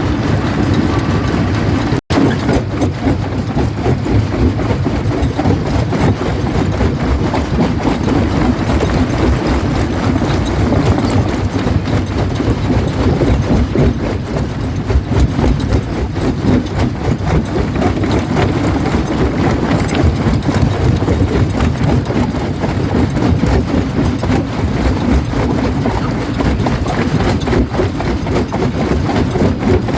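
Jaw crusher running and crushing rock: a steady heavy rumble dense with the cracking and clatter of stone breaking between the jaws. The sound cuts out for an instant about two seconds in.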